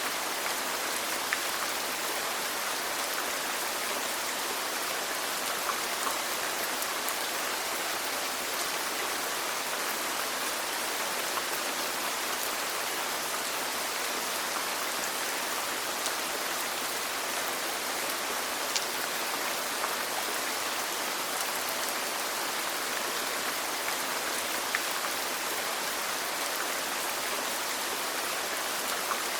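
Steady rainfall, an even hiss of rain with scattered faint drop ticks.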